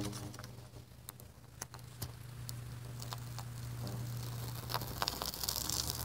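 Upright metal pipe humming a steady low tone as hot air from a fire at its flanged base draws up through it, with scattered crackles and ticks. Near the end the hum swells back into a fuller drone with many overtones.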